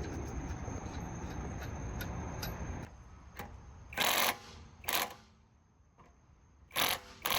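A ratchet wrench worked in a few short strokes, each a quick ratcheting burst, while a brake caliper is being refitted. A steady low hum runs underneath for the first few seconds, then drops away.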